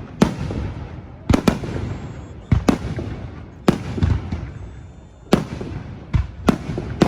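Fireworks bursting in a display: a run of about eight sharp bangs, roughly one a second and some in quick pairs, each followed by a rolling low echo.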